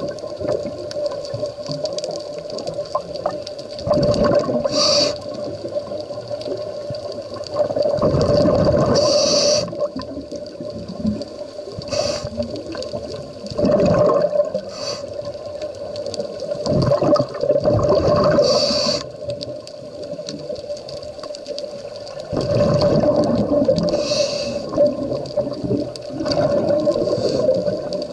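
Scuba diver's regulator breathing underwater: bursts of exhaled bubbles gurgle and rush about every four to five seconds, over a steady hum.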